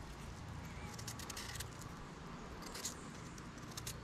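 Faint clicks and light scrapes of hands handling food and utensils during food preparation, in a few small clusters about a second in and again near three seconds, over a quiet low background.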